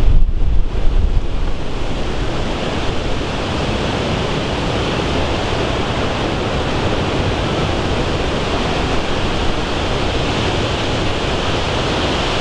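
Strong wind near a violent tornado, rushing steadily and hard against the microphone, with heavy low buffeting in the first second or so.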